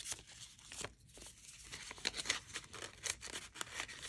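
Old handwritten paper crinkling and crackling as it is unfolded and folded back by hand: irregular short papery rustles, loudest about two seconds in.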